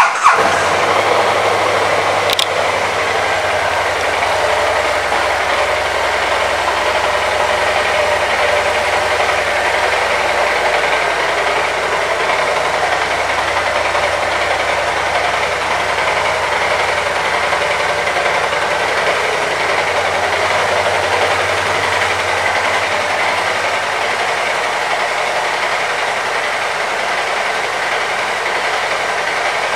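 BMW C 650 GT maxi-scooter's 647 cc parallel-twin engine catching at the very start, then idling steadily.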